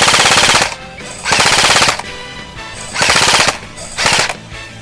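Airsoft rifle firing on full auto in short bursts of rapid shots, about four bursts, each about half a second long, the last one briefest.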